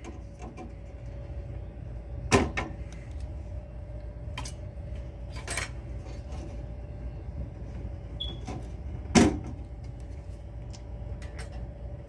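Plastic-and-metal clicks and clacks of circuit cards being unplugged from the card slots of a Simplex 2001 fire alarm panel: a handful of sharp knocks, the loudest about nine seconds in, over a faint steady hum.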